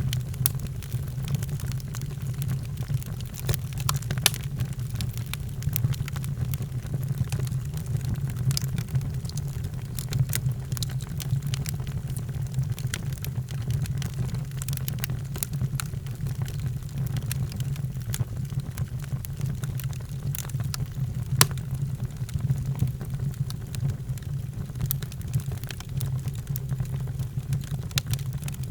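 Wood fire in a fireplace crackling, with frequent sharp pops and snaps scattered irregularly over a steady low rumble of the burning.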